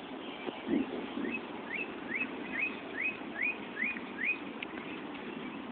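A bird singing a run of about nine short rising whistled notes, a little over two a second, over a steady low outdoor rumble.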